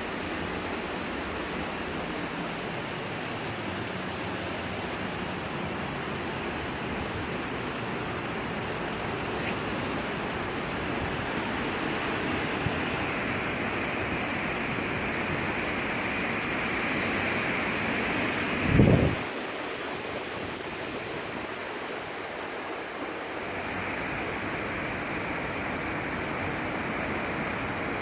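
Hurricane winds and rain making a steady, even rushing noise. About two-thirds of the way through, one brief gust buffets the microphone with a low thump.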